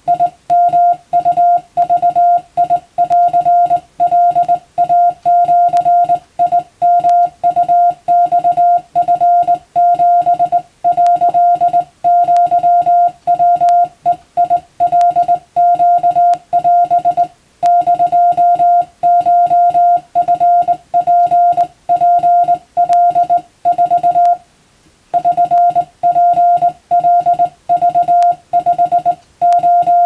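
Japanese (wabun) Morse code sent by hand on a straight key, heard as a steady mid-pitched sidetone beeping on and off in dots and dashes, with a brief pause about two-thirds of the way through.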